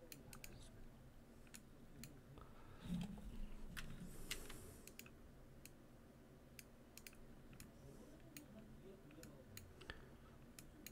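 Faint, irregular clicks of a computer mouse and keyboard being worked in 3D modelling software, over near-silent room tone, with a brief low sound about three seconds in.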